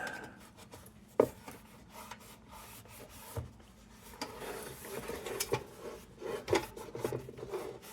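A cloth rubbing over a lantern's sheet-metal body, working an oily protective treatment into the corners. The rubbing is uneven and scratchy, with a sharp knock about a second in and a few light clicks as the metal is handled.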